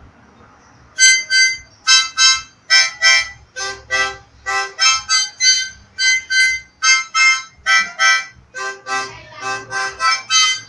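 Harmonica played in short, separate chord blasts, about two a second in a steady rhythm, starting about a second in.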